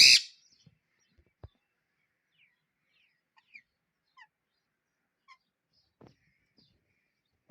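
A pet parrot gives one loud, harsh screech right at the start, followed by a few faint, short chirps that drop in pitch.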